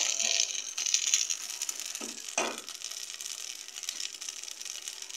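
Tripe stew in tomato sauce sizzling in a stainless steel pot on the stove. The sizzle is loudest in the first second or so and then dies down. There is one knock of the wooden spoon against the pot about two and a half seconds in.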